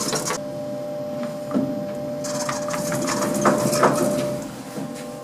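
Otis Gen 2 lift's doors and machinery: a hissing mechanical noise stops about half a second in, then returns a couple of seconds later over a steady hum, with a few sharp clicks.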